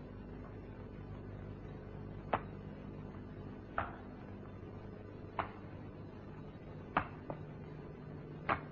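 Draughts pieces clicking down on the board: five sharp clicks about a second and a half apart, over a steady low hum.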